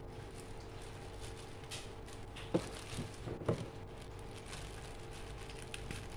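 Hands handling and opening a parcel's packaging: a few brief rustles and scrapes in the middle, the sharpest about two and a half and three and a half seconds in, over a steady faint hum.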